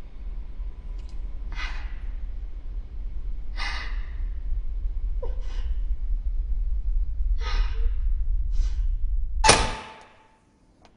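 A low rumbling horror-score drone builds steadily under a woman's short, nervous breaths and gasps. Near the end a sudden loud hit with a brief ringing tone cuts the drone off.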